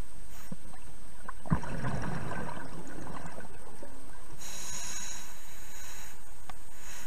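Scuba diver breathing through a regulator, heard underwater: a burst of exhaled bubbles about a second and a half in, then a hissing inhale through the regulator about four and a half seconds in.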